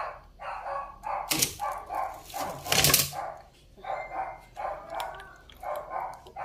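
A dog barking over and over, about two to three barks a second. Two louder bursts of noise come a little over a second in and near three seconds in.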